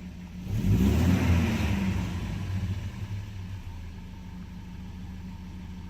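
1987 Mercedes 190E 2.0's four-cylinder engine, running on its natural-gas conversion, revved once about half a second in, its pitch rising then falling, then settling back to a steady idle. The idle sounds even after an adjustment to cure a rough idle on gas, which the owner judges "seems alright".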